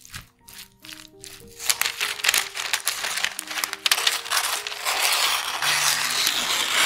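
A roll of brown baking paper rustling as it is unrolled and cut with scissors, starting about a second and a half in and getting louder toward the end, over light background music.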